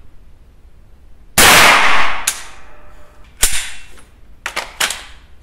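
A .22 LR shot from a Walther Colt M4 OPS carbine about a second and a half in, ringing briefly in the small range. It is followed by several sharp metallic clicks and clacks as the carbine's action is worked by hand. The shooter blames the carbine's repeated feeding failures on its very tight chamber.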